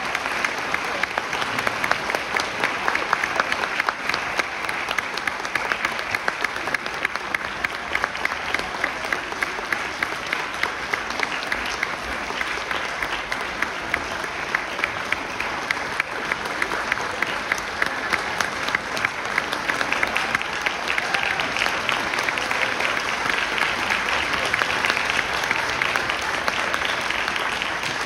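Audience applauding, a dense steady clapping that grows a little louder about two-thirds of the way through.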